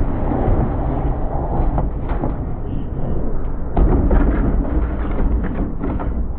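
Scrap metal being thrown off a truck onto the scrapyard pile: a few heavy thuds, the strongest about four seconds in, over a steady low rumble.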